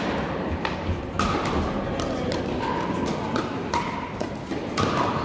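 Pickleball rally: paddles sharply popping against the plastic ball at irregular intervals, several strikes a second at times, echoing in a large sports hall.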